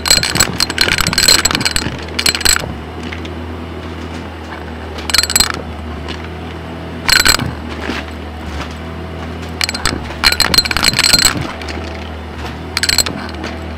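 Stick vacuum running steadily over a shag rug, with bursts of coins clattering and clinking as they are sucked up through the head and tube: a long burst at the start, then several shorter ones.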